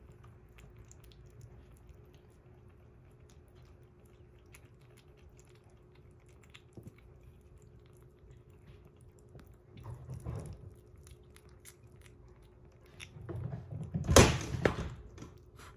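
Kitten eating soft wet weaning food from a glass bowl, with small wet chewing and lapping clicks. Near the end comes a louder bump and rustling.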